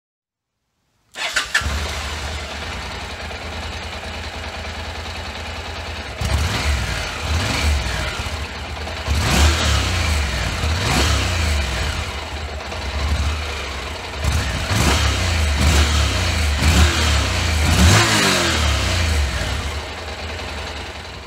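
Honda NC700X's 670 cc parallel-twin engine heard through its stock exhaust muffler. It idles steadily, then from about six seconds in it is revved in a series of throttle blips, each rising and falling in pitch, and settles back toward idle near the end.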